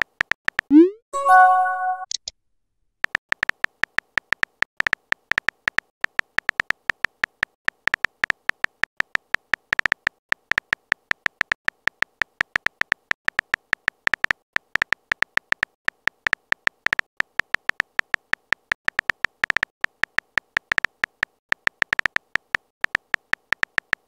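Chat-app message notification sound: a quick rising blip into a short chime, about a second in. Then a long run of rapid, irregular phone-keyboard typing clicks.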